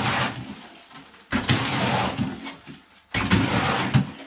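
A hoe scraping through wet concrete in a trough as it is mixed by hand, in three long strokes about two seconds apart.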